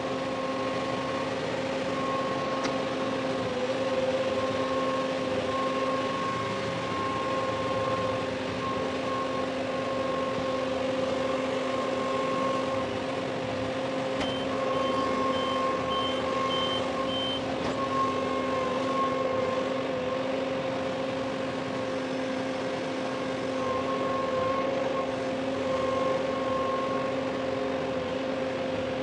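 LS compact tractor's diesel engine running steadily under load while its front loader lifts and sets down an IBC tote. A short run of high beeps sounds about halfway through.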